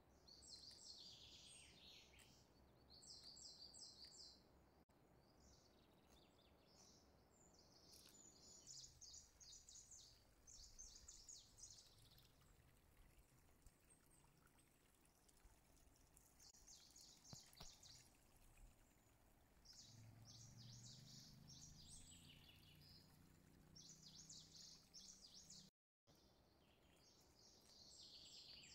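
Faint birdsong: clusters of short high chirps and trills recurring every second or two.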